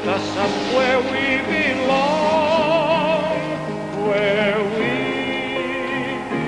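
Music: a slow song with a singing voice holding long, wavering notes over sustained backing chords.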